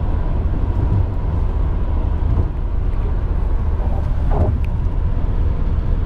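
Steady road and engine rumble of a car at highway speed, heard inside the cabin.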